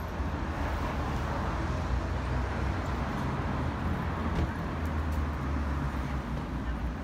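Road traffic on a busy city street: a steady rumble of cars passing, with tyre noise swelling during the first few seconds.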